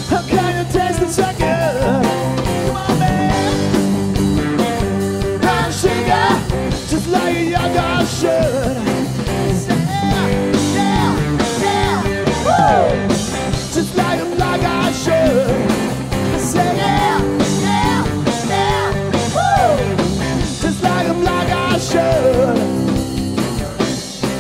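Live rock band playing, with electric guitars, bass, drums and saxophone under a lead vocal.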